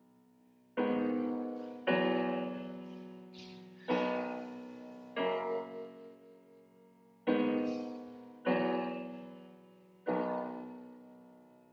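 Solo piano played slowly and freely: about seven chords struck one after another, each left to ring and fade before the next, with a short ripple of quicker notes near the middle.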